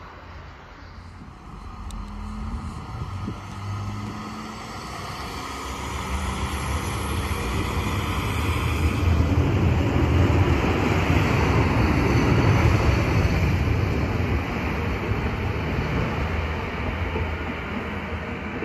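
Diesel trains running through a station: a DSB IC4 diesel trainset approaching, then, from about nine seconds in, an Arriva Lint diesel railcar running close by with a steady engine drone, which is the loudest part.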